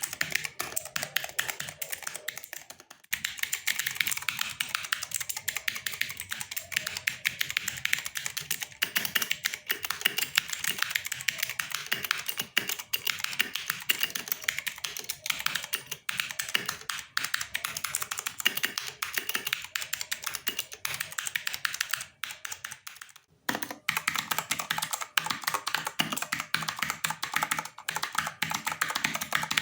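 Redragon Kumara K552 mechanical keyboard being typed on quickly: a dense, even clatter of keystrokes, stopping briefly about three seconds in and again for about a second and a half near the twenty-two second mark. These are sound tests of the keyboard with tape mods meant to cut its metallic echo.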